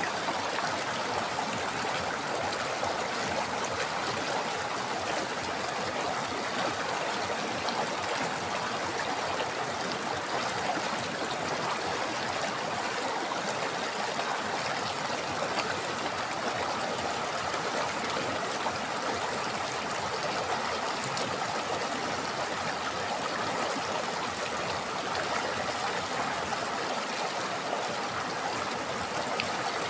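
River water flowing steadily, an even rushing and trickling with no breaks or changes.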